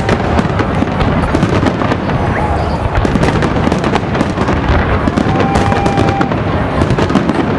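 Fireworks display: a dense, continuous barrage of bangs and crackling shells, with no break.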